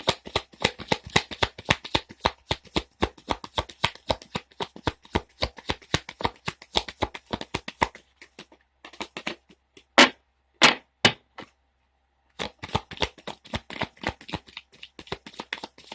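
A deck of oracle cards being shuffled by hand: a fast run of quick card slaps and flicks, a few single louder snaps after about eight seconds, a short pause, then more rapid shuffling.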